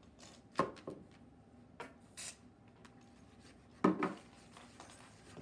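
Scattered knocks and clatters of bottles, a can and bowls handled on a tabletop, with a short hiss a little past two seconds in and the loudest clatter about four seconds in.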